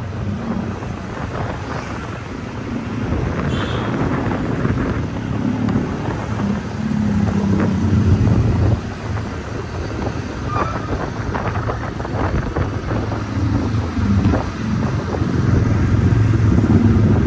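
Riding on a moving scooter: wind rumbling on the microphone over the scooter's engine and road noise, rising and falling in loudness.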